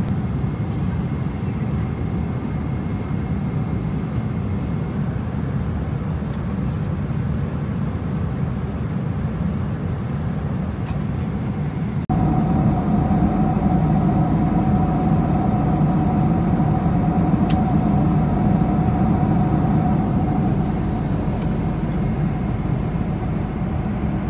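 Steady cabin noise of a Boeing 747-400 in cruise: a constant low rumble of engines and airflow. About halfway through it jumps louder, with a steady hum added.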